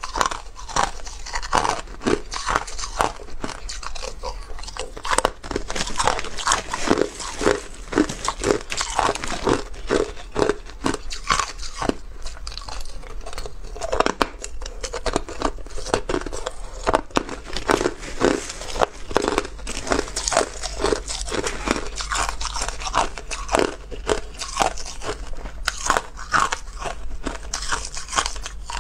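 Close-up crunching of crushed clear ice being bitten and chewed, a dense run of sharp, irregular crackling crunches, with the scrape of a metal spoon in the ice.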